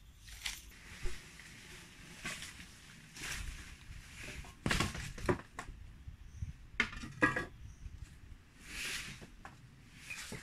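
Wooden poles knocking and clattering against one another as they are handled, with scraping and rustling in between. The loudest clatters come about halfway through and again a couple of seconds later.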